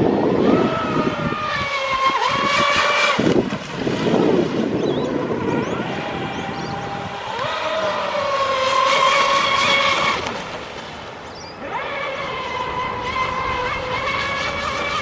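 Pro Boat Zelos 36-inch twin-brushless RC catamaran making high-speed passes: a high-pitched motor and propeller whine that rises and eases with the throttle, in three spells with a quieter lull about two thirds of the way through.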